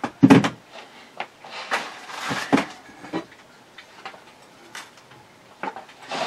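Small gear and packaging being handled and set down: a solid knock just after the start, rustling around two seconds in ending in another knock, then a few lighter clicks and taps.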